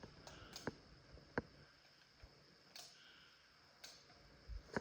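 Quiet room with a handful of faint, irregular clicks.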